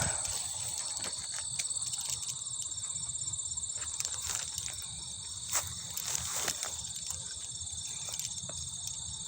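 A steady, high-pitched chorus of crickets and other insects trilling, with a few scattered soft footsteps on a sandy path.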